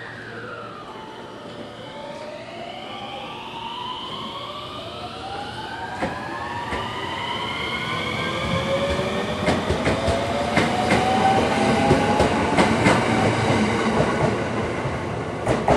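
JR West 521 series electric train pulling away and accelerating: its traction motors whine in several tones that rise steadily in pitch. Wheels click over the rail joints, growing louder and quicker as the cars pass, loudest near the end.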